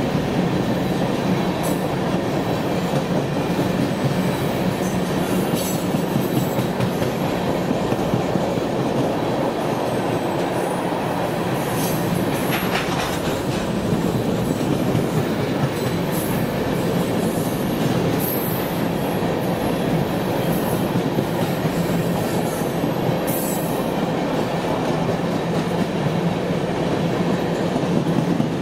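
Freight train cars rolling past with a steady rumble of steel wheels on rail and clickety-clack over rail joints. Brief high wheel squeals come through now and then.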